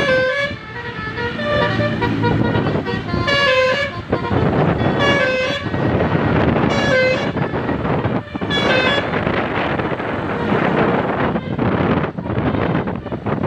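Telolet basuri musical horn playing a run of short pitched toots, about every one and a half to two seconds, over steady road noise. The toots stop about nine seconds in, leaving only the road noise.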